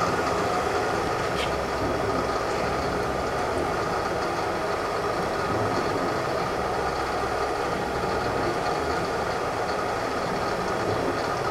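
Drake CNC thread grinder running steadily: an even machine hum and hiss with a faint high whine, holding the same pitch and level throughout.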